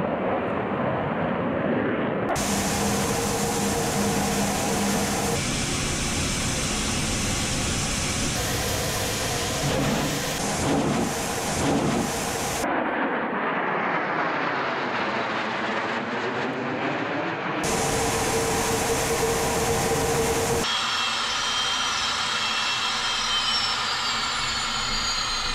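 Su-25 ground attack jets' twin turbojet engines running at power: a steady loud rush that changes abruptly several times as shots are cut together. In the middle the sound sweeps as an aircraft passes, and near the end a high engine whine slowly falls in pitch.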